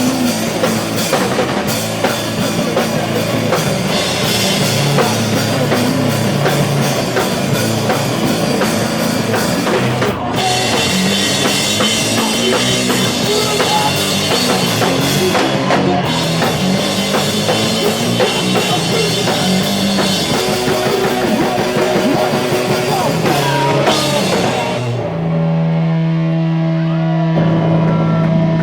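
A loud live rock band playing: drum kit and distorted electric guitars at full volume. About 25 seconds in the drumming stops and a steady, low held note keeps ringing.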